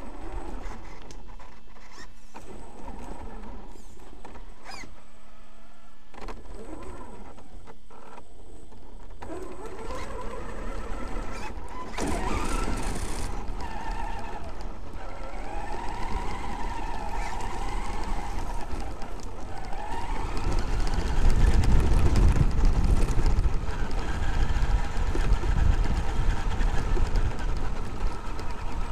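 Traxxas X-Maxx electric RC monster truck driving over gravel and grass, heard from its onboard camera. Its brushless motor and drivetrain whine, rising and falling in pitch as the speed changes, over constant tyre noise. A heavy low rumble grows louder about two-thirds of the way through.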